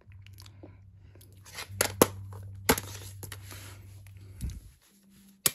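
Plastic DVD case being handled and opened by hand: rustling and rubbing on the plastic, with a few sharp clicks and snaps from the case's clasp and hinge.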